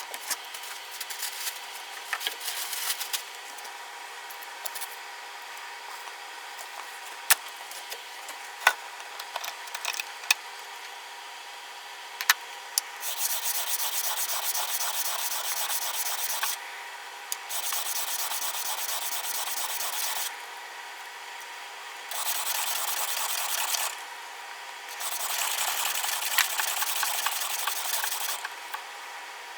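Steel plane iron rubbed on an abrasive surface while being ground and sharpened. The first half is light scraping with scattered clicks; from about halfway there are four stretches of steady rubbing, each two to three seconds long.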